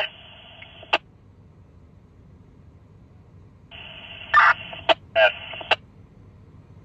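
Fire department two-way radio traffic. A transmission cuts off with a squelch click about a second in. After a short quiet gap, the channel keys up again with a band of hiss, a few short garbled bursts and sharp clicks, then drops out.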